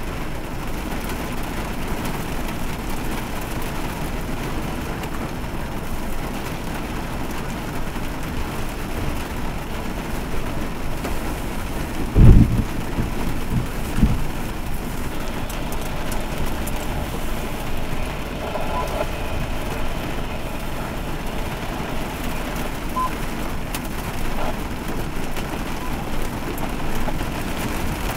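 Heavy rain pouring steadily. About twelve seconds in there is a short, loud, deep thump, and a smaller one follows about two seconds later.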